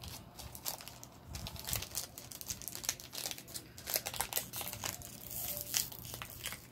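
Foil wrapper of a Dragon Ball Super Card Game booster pack crinkling with irregular crackles as it is worked open by hand, a pack that is hard to open.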